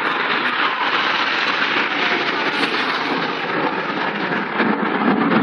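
Jet noise from a formation of BAE Hawk T1 jets with Adour turbofan engines flying over, a loud, steady rumbling rush.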